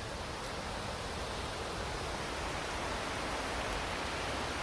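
Steady rushing of water from a nearby stream or waterfall, an even hiss and rumble that grows slightly louder.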